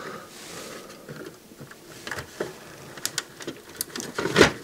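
Irregular small clicks and taps of a screwdriver and fingers on plastic snap-in clips and a small circuit board inside a CD player's case, as the board is worked loose. The clicks come a few at a time, with a louder click near the end.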